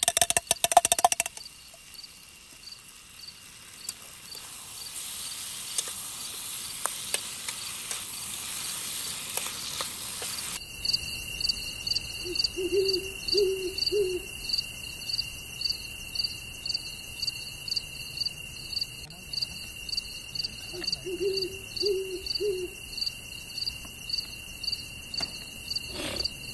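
Rice tipped into a wok of vegetables frying in hot oil, sizzling loudly for about a second, then a quieter steady sizzle. After a sudden change about ten seconds in, crickets chirping about twice a second over a steady high trill.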